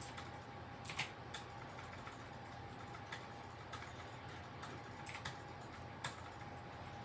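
Scattered light clicks and taps of a pencil and pen handled and set against paper on a glass-topped desk, about eight in all, the loudest about a second in. A faint steady hum runs underneath.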